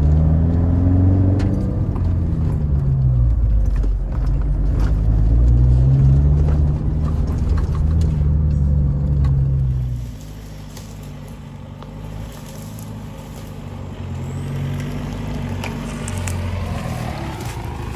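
Stage 2 remapped Isuzu D-Max V-Cross diesel engine driving, its pitch climbing and falling in long surges over the first ten seconds. It then drops to a quieter, lower note before picking up again near the end.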